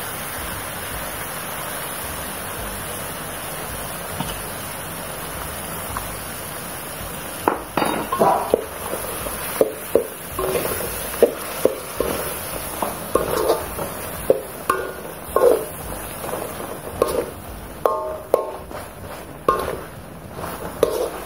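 Chicken feet in spiced broth simmering in a metal wok with a steady hiss; from about seven seconds in, a metal ladle stirs them, clinking and scraping against the wok again and again.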